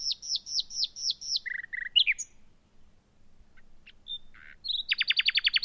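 Common nightingale singing: a run of repeated high, downslurred whistled notes, a couple of lower notes and a sharp upslurred note, a short pause with a few scattered notes, then a loud, very rapid trill of many notes starting near the end.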